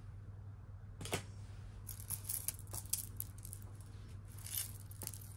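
Costume jewelry clinking and rattling as hands rummage through a pile of necklaces, beads and bracelets on a cloth: a scatter of small clicks, busiest from about two to three and a half seconds in, over a faint steady hum.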